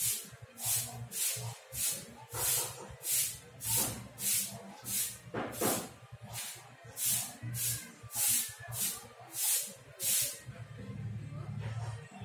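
Rhythmic swishing at a scooter's front wheel hub, about two strokes a second, which stops near the end.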